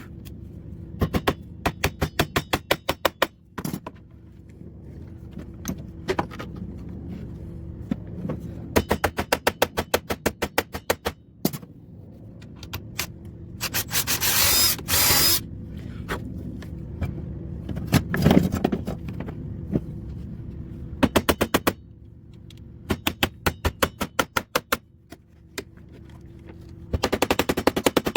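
Repeated bursts of rapid clicking, about ten clicks a second and each burst lasting one to three seconds, as fasteners are worked out of a car door's inner panel and trim. About halfway through comes a short loud hiss.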